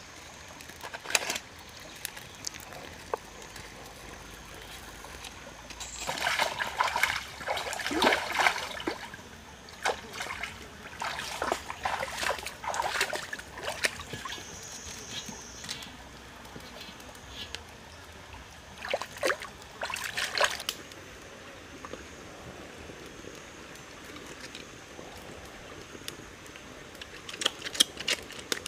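Shallow stream trickling steadily, broken by three spells of splashing and clatter, then a few more near the end.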